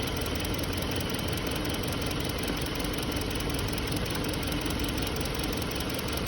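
2020 Hyundai Sonata's four-cylinder engine idling steadily while misfiring on cylinder 2 (code P0302), the engine shaking. The mechanic traces the misfire to a faulty cylinder 2 fuel injector that does not close properly.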